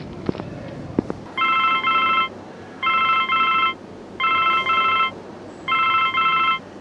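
A telephone ringing in four double rings, each a short pair of electronic tones, evenly spaced about a second and a half apart.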